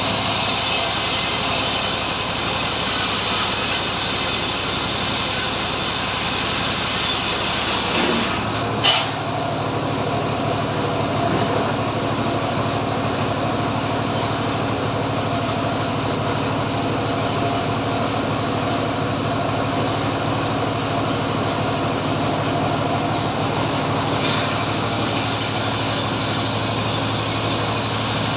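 Engine-driven homemade log sawmill running steadily, with a steady engine drone. The engine note shifts about 8 seconds in, and a brief louder swish follows about a second later.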